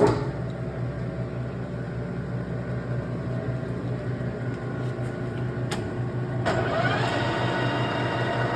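Clausing Colchester 13-inch metal lathe switched on, its motor and headstock gearing starting abruptly and running with a steady hum. About six and a half seconds in, a sharp click, and the running gets louder with a rising gear whine.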